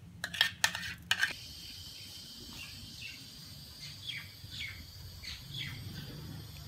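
Birds chirping in short, falling calls over a faint steady background. A few sharp clicks and knocks come in the first second or so.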